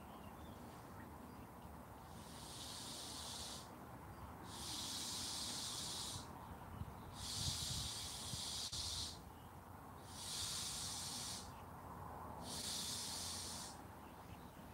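Air hissing through the valve of an inflatable dolphin, in five bursts of about a second each with short pauses between.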